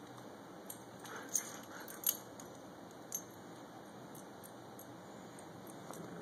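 Metal tags on an adult Siberian husky's collar clinking lightly, with three sharper clinks between about one and three seconds in.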